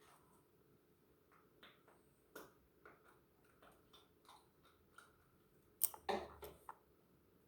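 Faint scattered clicks and soft sticky ticks from slime and its containers being handled, with a louder cluster of short sounds about six seconds in.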